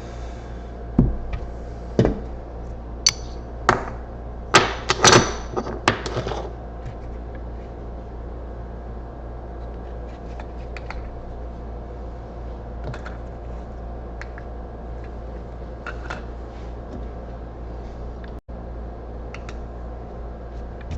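A string of sharp knocks and clicks from hard objects being handled and set down, about eight over the first six seconds with the loudest cluster around five seconds in, then only a steady low hum.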